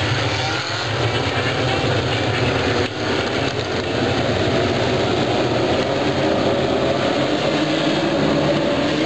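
A pack of Legend race cars running together at speed, a dense mass of engine noise. The pitch rises through the second half as the field accelerates.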